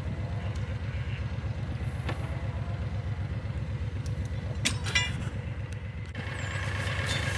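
Vehicle engine idling steadily with an even low pulse, a couple of sharp clicks about five seconds in, and a brighter hiss joining about six seconds in.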